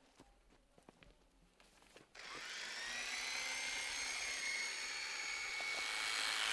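Electric animal clippers switched on about two seconds in, spinning up and then running with a steady high-pitched whine as they shear a mule's coat. Faint clicks and rustles before they start.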